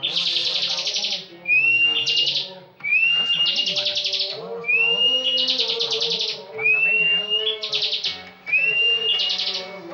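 Bar-winged prinia (ciblek) singing its rattling 'ngebren' song. About six repeated phrases, each a short rising whistle that runs into a fast, buzzy trill. Fainter low background sound underneath.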